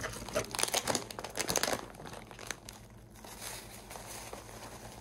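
Plastic zipper bag crinkling as it is pulled from its box and opened: rapid, fairly loud crinkles for about the first two seconds, then softer rustling of plastic as pretzel crumbs are poured in.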